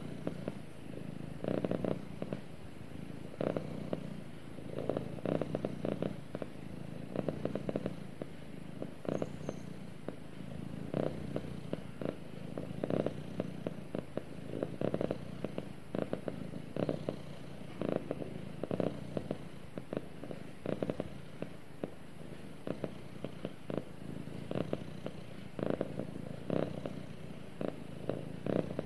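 Domestic cat purring steadily while being stroked on the head, the purr swelling and easing with each breath about every one and a half to two seconds.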